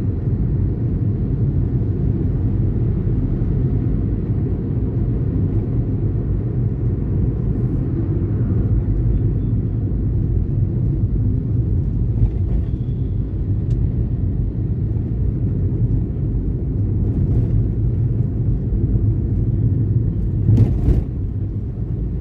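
Steady low rumble of a vehicle driving along a city road. Near the end there is one short, loud knock.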